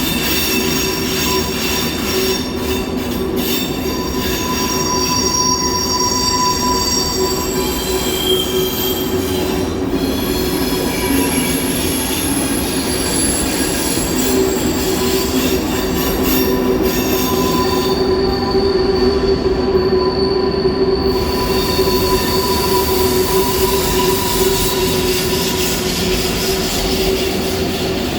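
SBB train wheels squealing against the rails over the steady running rumble of the train: several high-pitched squeal tones that come and go, holding their pitch.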